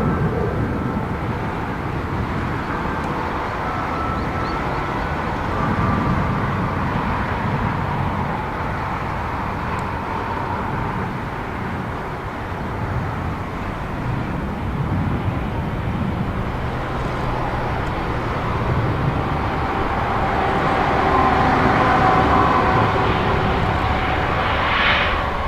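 Airbus A320-232 jet airliner with IAE V2500 engines on its landing run: a steady jet rumble with thin engine whine tones that drift in pitch, growing a little louder in the last few seconds.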